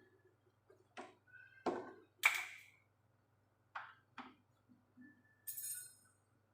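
Irregular clicks, knocks and clinks of washing-machine parts and tools being handled during reassembly. A sharper metallic ping comes about two seconds in, and a brief high squeak comes near the end.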